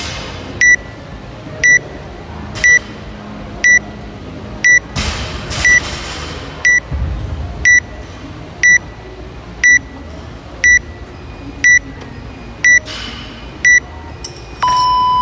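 Workout countdown timer app beeping: a short high beep once a second, fourteen in a row, then a longer, lower beep near the end as the countdown reaches zero and the workout starts.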